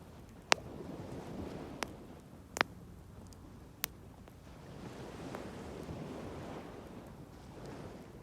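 Wood bonfire crackling, with four sharp pops in the first four seconds, over the wash of sea waves that swells and ebbs.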